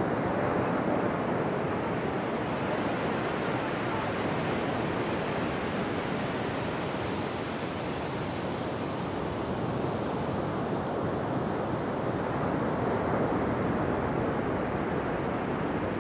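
Steady rushing noise, like wind across the camera microphone, with no distinct events.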